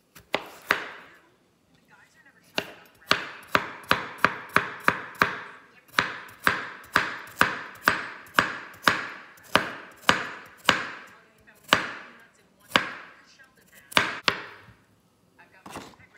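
Chef's knife chopping carrot, then zucchini, on a wooden cutting board: a long run of sharp knocks on the board, quick at first, then a steady beat of about two a second, slowing and spacing out near the end.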